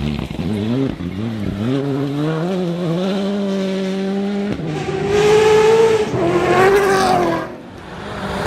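Rally car engine revving hard and accelerating, the pitch swinging up and down and then climbing through the gears. About halfway through it jumps to a louder, higher run that drops away near the end.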